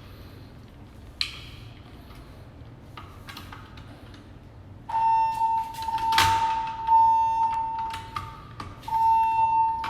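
Fire alarm sounder in a stairwell starting up about halfway through: a steady, high continuous tone that drops out briefly about three seconds later and resumes. A few sharp clicks come before it, and one loud knock sounds shortly after it starts.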